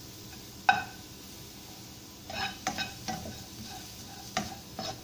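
A spatula stirring and scraping sliced onion, garlic and cumin seeds around a dry non-stick wok, with sharp knocks of the spatula against the pan that ring briefly. The loudest knock comes just under a second in, and a cluster of them comes about halfway through.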